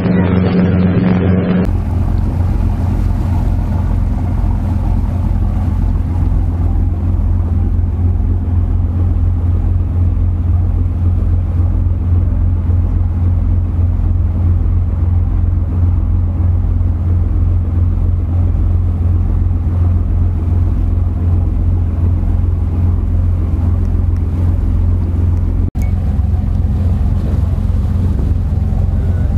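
Intro music for the first second or two, then a fishing boat's engine running steadily under way: a deep, even hum with some wind noise on the microphone, broken for an instant near the end.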